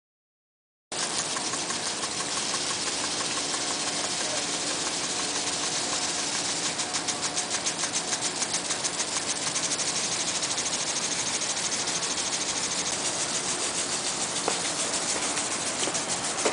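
Steady mechanical running noise, mostly hiss with a faint hum and a fine even pulsing, like an engine or machinery running. It starts abruptly about a second in.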